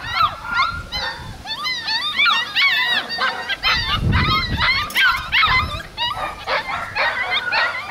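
Several puppies barking and yipping as they play-fight, many short high-pitched calls overlapping in quick succession.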